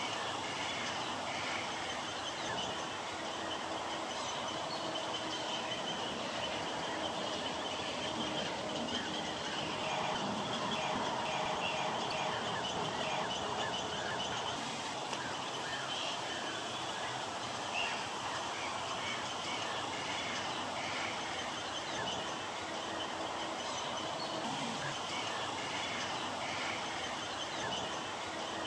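Marsh ambience: a steady hiss with a constant high buzz, dotted all through with many short, high bird chirps.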